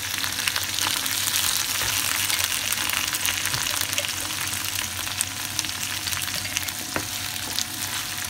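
Peas, diced carrot and corn sizzling and crackling in hot oil over browned onions in a kadai, a steady frying hiss full of small pops, with a sharper crack about seven seconds in. The vegetables have just gone into the oil.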